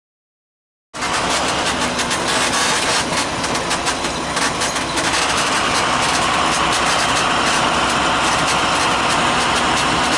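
A vehicle engine running steadily with a constant rumble, cutting in suddenly about a second in.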